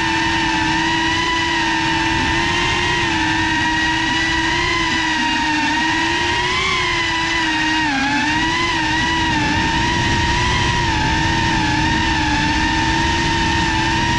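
Motors and propellers of a Geprc FPV quadcopter whining steadily, recorded close up by the onboard GoPro. The pitch rises and falls slightly with throttle, dipping about eight seconds in.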